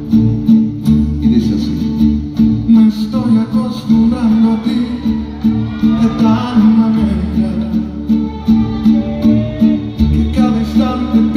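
A live Mexican regional band plays a song on stage, with strummed guitars over a steady, pulsing bass line and sustained melody lines.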